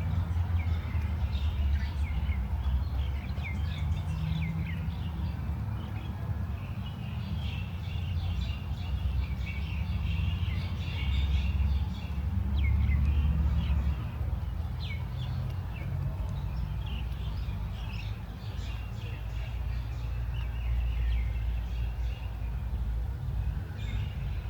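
Several small birds chirping and calling in quick, short notes, over a steady low rumble.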